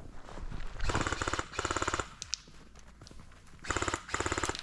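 Airsoft replica firing on full auto: four short rapid bursts in two pairs, the first pair about a second in and the second near the end.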